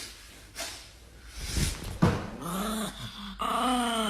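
A dog vocalising: a low grumbling growl that rises and falls, then a louder, higher drawn-out whine near the end.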